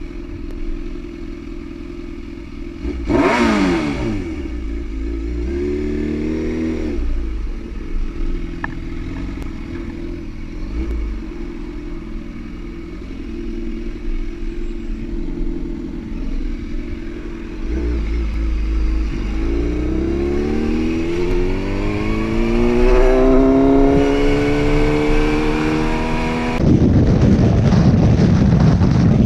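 Sport motorcycle engine idling in traffic, revved briefly a few seconds in, then pulling away with a long rising engine pitch. Near the end it changes abruptly to the steady rush of wind noise from riding at highway speed.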